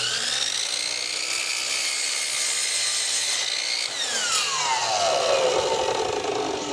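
Sliding compound miter saw cutting through a length of wooden stair nosing. The motor's whine rises as it comes up to speed, holds steady through the cut, and falls away after about four seconds as the trigger is released and the blade winds down.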